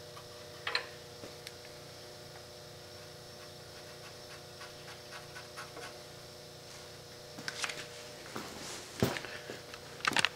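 A few short scrapes and taps of a marker on the sheet-metal valley pan as its corners are marked for bending, most of them in the last few seconds, over a steady faint hum.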